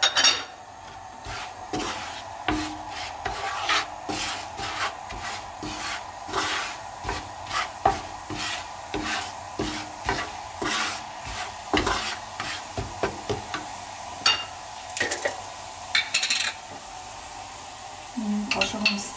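A wooden spatula stirs and scrapes spices in hot oil in a frying pan, in repeated strokes, over a faint steady sizzle.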